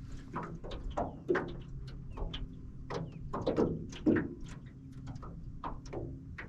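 Irregular knocks and clicks, a few a second and some with a duller thud, over a faint steady low hum.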